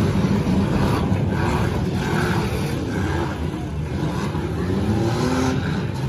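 Several demolition derby cars' engines running and revving together, rising and falling in pitch as the cars accelerate and back up across a dirt arena.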